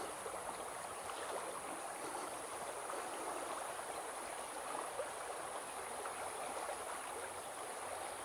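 Shallow stream flowing steadily over rocks: a continuous rushing, babbling water sound.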